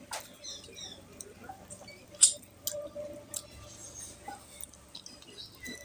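Close-up eating sounds of mutton curry and rice: wet squishing and mouth sounds, with a series of sharp smacking clicks, the loudest about two seconds in.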